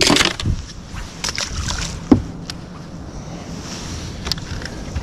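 Sounds of a small fishing boat on the water: a steady wash of water and wind, with scattered knocks and clatters, the loudest about two seconds in.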